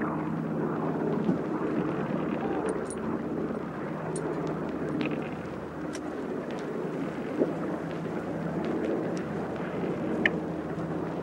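Steady low mechanical rumble with a faint hum under it, like dockside machinery, with a few light clicks and knocks scattered through it.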